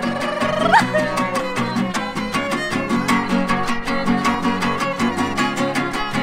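Son huasteco played live: a violin carries the melody, sliding up in pitch about a second in, over fast, even strumming from the jarana and huapanguera.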